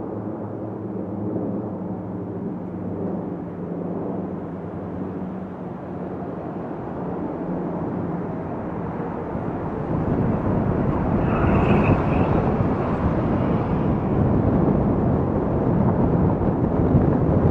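Car driving along a city street. A steady low engine hum gives way, about ten seconds in, to a louder, even rumble of road and wind noise.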